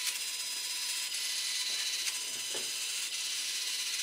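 Tiny servos in a Delta Ray One RC plane whirring and ticking about once a second as they slowly move the wing's control surfaces up and down, the sign that its GPS module is still searching for satellites.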